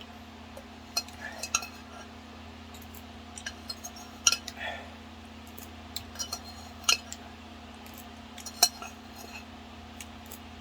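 Eating utensils clicking and clinking against a dish as the last of a bowl of ramen is eaten, in scattered single knocks, over a steady low hum.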